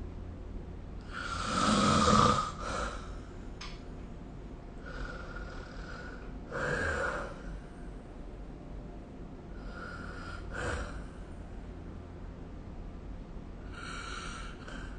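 A person snoring in a slow rhythm, about one breath every four seconds, with the loudest snore about two seconds in.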